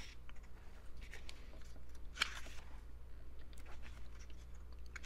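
Pages of an album photo book being turned by hand: a few soft paper swishes, the clearest about two seconds in.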